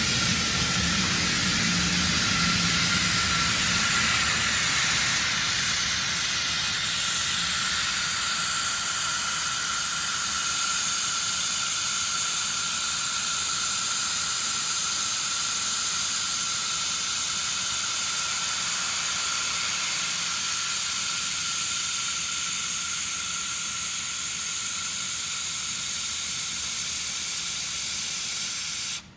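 1500 W fiber laser welding machine welding 1.5 mm carbon steel: a steady hiss with a faint whistle in it, cutting off suddenly at the end as the weld stops.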